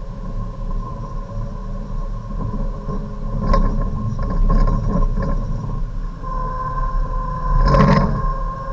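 Hyundai Avante race car heard from inside the cabin at full throttle, the engine revving up through third gear to about 6,500 rpm, then in fourth, over a steady high whine and road rumble. Several short knocks come mid-way and a louder one near the end.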